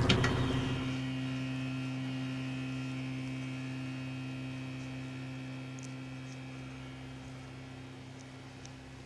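A steady low hum with a few fainter steady higher tones, slowly fading away.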